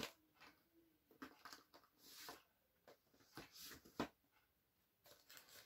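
Near silence, with a few faint, short taps and rustles of a DVD box set being handled; the clearest tap comes about four seconds in.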